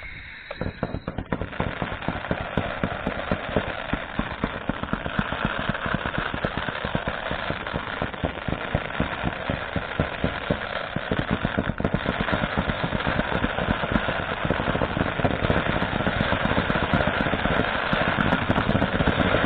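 Fireworks opening barrage: a dense, rapid run of pops and crackles as many low-level comets and fountains fire in quick succession, growing louder toward the end.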